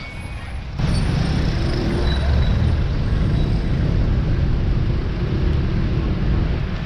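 Steady road and traffic noise with heavy low wind rumble on the microphone, typical of a camera mounted on a moving bicycle. The sound steps up louder about a second in and then holds steady.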